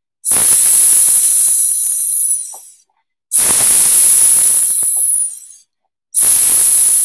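A woman's voice making a long hissing 'sss', the s phonics sound, three times, each held for about two seconds with short pauses between.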